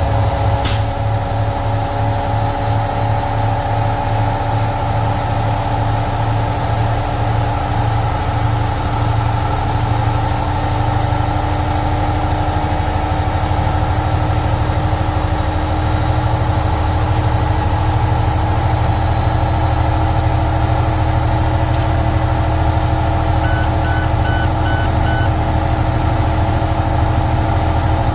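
The warmed-up MaxxForce 13 diesel engine of a 2013 International truck running steadily, its low note changing slightly about ten seconds in. A click just after the start, and near the end five short electronic beeps.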